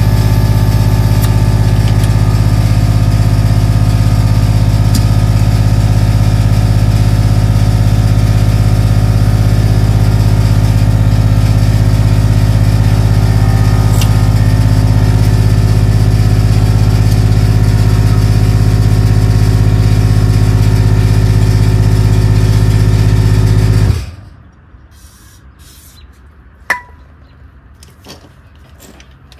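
A motor running loudly at one steady pitch, then cutting off suddenly near the end, followed by a single sharp click.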